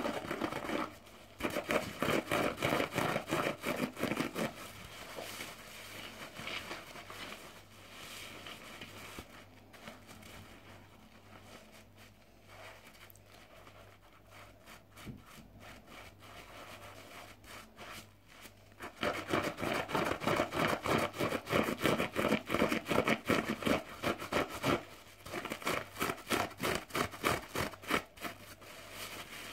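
A wet, soapy bath sponge rubbed and squeezed hard against the microphone, with fast runs of rubbing strokes about a second in and again from about two-thirds of the way through, and softer, quieter rubbing between.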